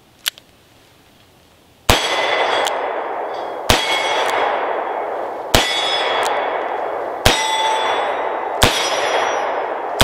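Rock Island Armory AL3.1 .357 Magnum snub-nose revolver, with a 2-inch barrel, fired with full-power .357 Magnum loads. There are five sharp shots about one and three-quarter seconds apart, starting about two seconds in, and another right at the end. Each shot is followed by the ringing clang of steel plate targets.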